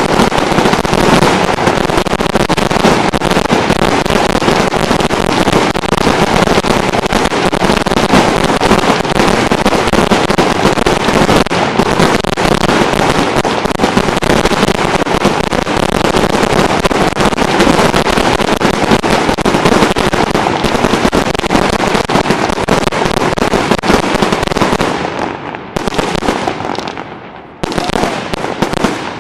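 Fireworks finale firing a dense, continuous barrage of rapid shots and crackle. It dies away in the last few seconds, with a short final flurry of shots just before the end.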